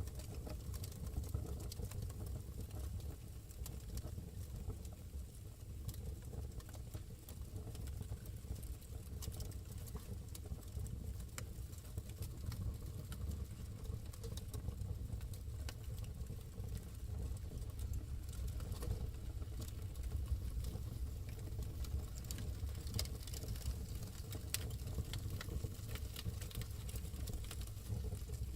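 Wood fire burning in a fireplace: a steady low rumble of the flames with frequent small irregular crackles and pops.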